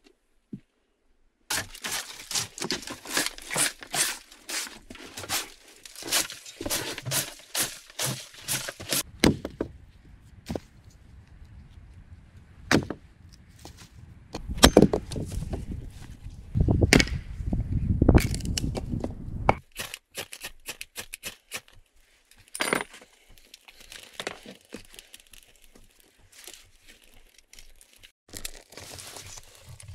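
Wood being worked by hand: a rapid run of sharp cracks and snaps, then scattered single knocks, with a stretch of heavier low thuds and rumbling in the middle.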